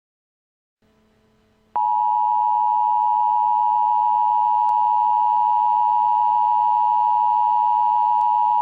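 Emergency Alert System attention signal: a steady, loud two-tone electronic alarm that starts abruptly about two seconds in, after a second of faint hiss, and holds at one pitch without a break. It signals that an emergency message is about to be broadcast.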